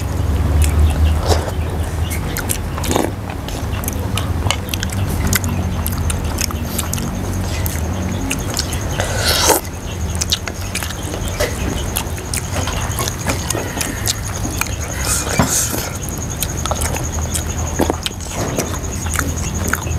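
Eating close to clip-on microphones: chewing, with metal spoons clicking and scraping against bowls again and again, over a steady low hum.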